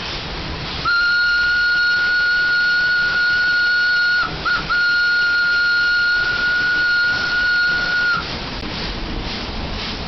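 WP class steam locomotive's steam whistle blowing one long blast on a single steady pitch for about seven seconds, briefly broken by a quick double stutter a little past halfway. A steady low rush of noise runs underneath.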